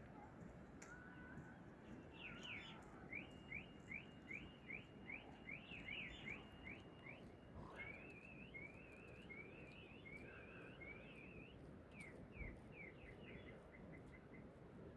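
Faint songbird song over a low background hiss. It is a rapid series of short, sharply rising high notes, about three a second, then a run of zigzag warbled phrases, and a few falling notes near the end.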